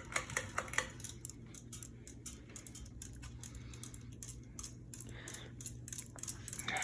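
Minka Aire Carmel ceiling fan motor switched to low speed, giving a steady low hum, with a run of light clicks and ticks that are thickest in the first second.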